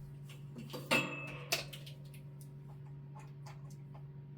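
Steady low mains hum of a box fan's electric motor, with two sharp clicks about a second and a second and a half in.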